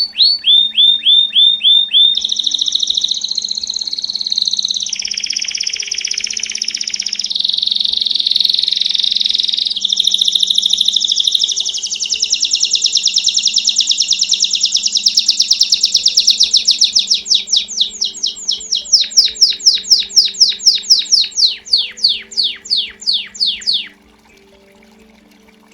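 Domestic canary (canário belga) singing its 'campainha' song: strings of rapid repeated notes, steady trills and rolls, ending in a slower run of separate chirps. It stops suddenly about 24 seconds in.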